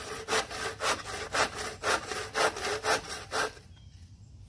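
Small hand saw cutting through a wooden rake handle in steady back-and-forth strokes, about two a second, stopping about three and a half seconds in.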